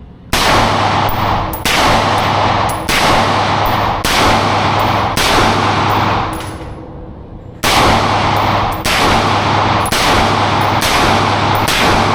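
About ten semi-automatic shots from a 10.5-inch AR pistol (ARP), roughly one a second, each trailed by a long echo, with a short pause about halfway through.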